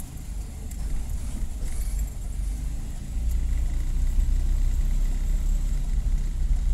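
Car engine and road rumble heard from inside the moving vehicle, a steady low drone that grows louder about three seconds in.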